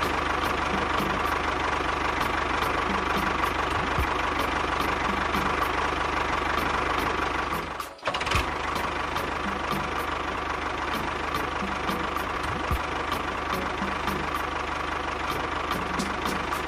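An engine running steadily with a continuous drone, cutting out for a moment about eight seconds in and then running on.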